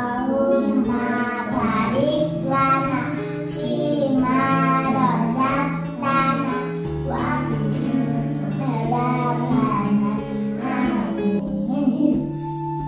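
Children singing a short prayer song in phrases, with steady instrumental music beneath that includes plucked guitar.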